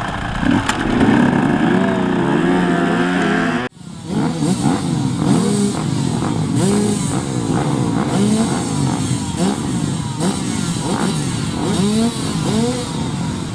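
Motorcycle engine revving up and easing off again and again, its pitch rising and falling about once a second, as on a grasstrack rider working the throttle through corners. The sound breaks off sharply for a moment a little over a third of the way in, then the revving resumes.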